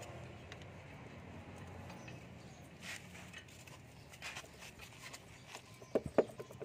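Light metal clicks and scrapes from a steel rod and bar worked against a truck diesel engine's parts during teardown, with a few sharper metal taps near the end. A low hum sits underneath at the start.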